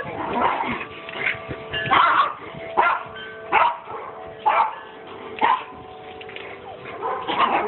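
Puppies barking, short sharp barks repeated about once a second.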